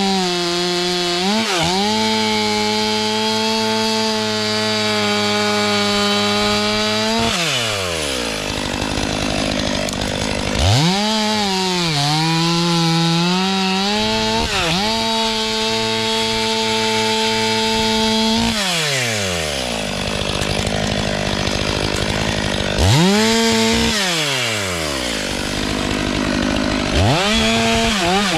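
STIHL MS 500i fuel-injected two-stroke chainsaw run at full throttle, held high for several seconds, then let fall to idle and revved back up, about three times. Its pitch sags briefly under load after the second rev-up.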